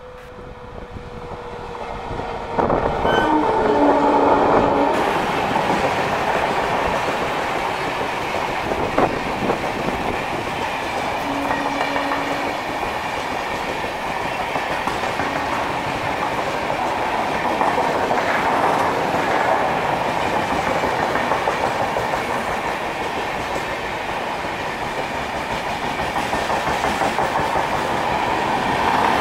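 An express train passing close by, its wheels clattering over the rail joints. The sound swells quickly over the first three seconds, then stays loud and steady as the coaches run past.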